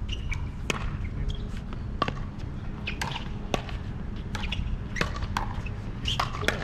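Pickleball rally: the sharp pops of paddles striking a plastic ball, about eight hits at uneven spacing and coming quicker near the end as the players trade shots at the net, over a steady low rumble.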